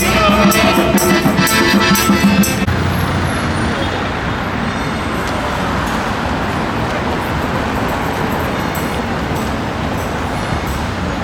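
Music with a steady beat for the first few seconds, then an abrupt cut to steady city street traffic noise, a continuous rumble and hiss of passing vehicles.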